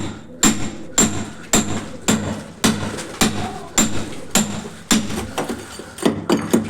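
Hammer striking repeatedly and evenly, about two blows a second, each hit with a short metallic ring.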